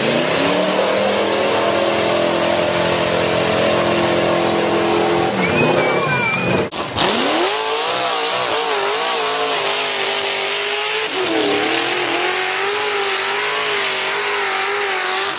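Mud truck engines at full throttle through a mud pit. A high, steady engine note for the first five or six seconds. After a short break about seven seconds in, a second truck's engine climbs in pitch and holds at high revs, its pitch wavering up and down as the tyres spin and grab in the mud.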